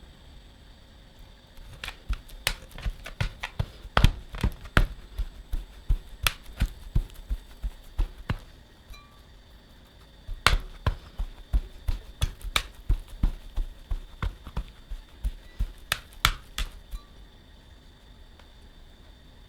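Repeated sharp knocks of a kitchen tool, several a second, in two runs of about seven seconds each with a short pause about nine seconds in.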